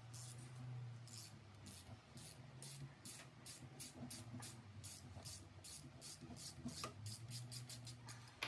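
Hand ratchet clicking as it backs out the screws holding a KTM 450 EXC-F four-stroke's oil pump: a faint, regular series of short rasps, about three a second, coming faster near the end as the screw frees up.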